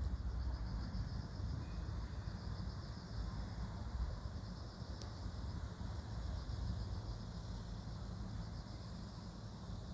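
Insects chirping in a steady, rapidly pulsing high trill, over a low continuous rumble.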